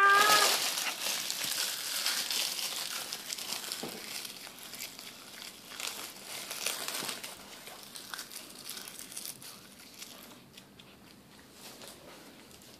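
A crisp sheet of roasted seaweed (nori) crinkling and crunching as a child bites and crushes it in his hands and mouth, loudest at first and fading toward the end. A held vocal note cuts off about half a second in.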